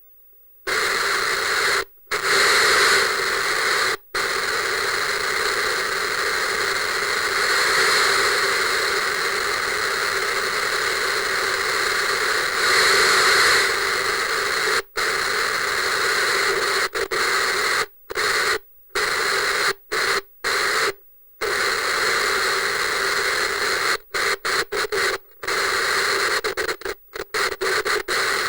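Analog television static: a steady hiss that starts about a second in and cuts out abruptly for short gaps now and then. The cut-outs come in quick succession near the end.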